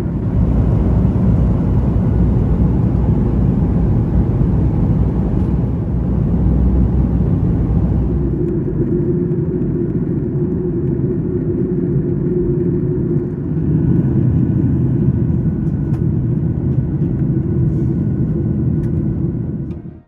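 Boeing 737-900ER cabin noise: a loud, steady low rumble of jet engines and airflow heard from inside the passenger cabin. A low hum stands out for a few seconds in the middle, and the sound cuts off abruptly at the end.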